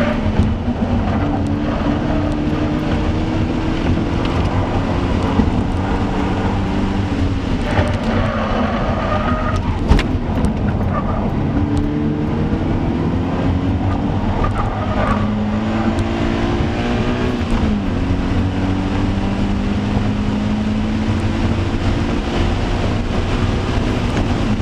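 2015 Scion FR-S's 2.0-litre flat-four engine pulling hard on track. Its pitch climbs slowly between sudden drops at gear changes, with one sharp knock about ten seconds in.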